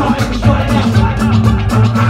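Live britcore hip hop music played loud through a club PA: a heavy bass line under a steady drum beat.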